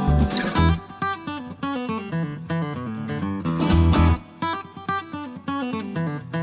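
Background music: a strummed and plucked acoustic guitar tune with bass and drums, the drums dropping out for a stretch after the first second and returning around four seconds in.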